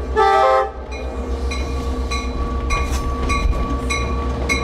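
Diesel-electric locomotive passing: a short chord of its air horn ends just after the start, then the low engine rumble carries on under a bell struck in a steady rhythm, a little under twice a second.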